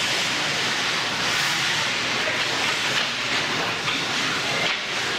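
Steady hissing ambience of an ice hockey rink during play, with no distinct events standing out.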